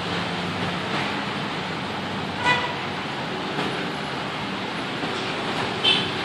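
Honda Vario 125 scooter's single-cylinder engine running steadily through a custom exhaust, a smooth, low note, with two short horn toots, one a couple of seconds in and one near the end.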